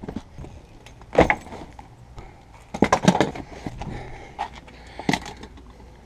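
Bags and gear being set down and shoved into a van's cargo space: several scattered thumps and knocks, with a quick run of them around the middle, and rustling of the bags in between.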